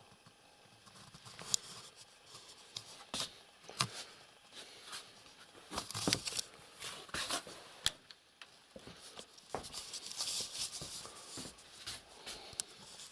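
Handling and movement noise in a small room: scattered sharp clicks and light knocks, with stretches of rustling, as someone walks about with a handheld camera.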